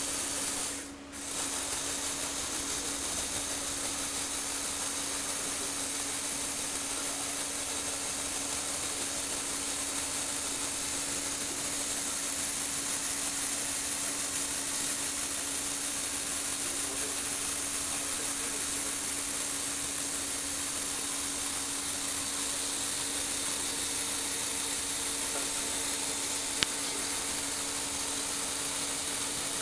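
Small electric motor driving plastic gears in a motorized Lego Technic rotating stand, making a steady whirring hum with a constant low tone. It cuts out for about half a second near the start, then runs evenly, with a single click near the end.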